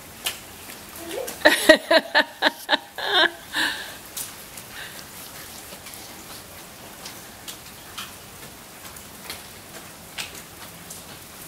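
Rain falling and dripping in a steady patter, with scattered single drop ticks. About a second in, a short, louder run of high, voice-like sounds cuts through for a couple of seconds.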